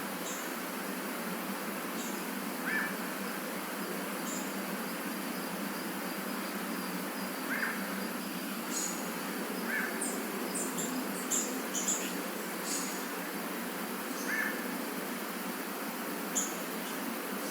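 Tropical forest ambience: a steady hiss of insects with scattered short bird calls. Lower chirps come every few seconds, and brief high notes cluster about halfway through.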